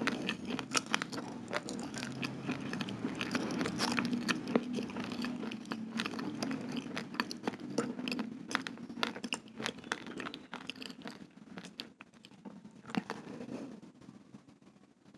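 Close-miked chewing of raw, uncooked rice grains: dense, crisp crunching that thins out over the last few seconds and stops at the end.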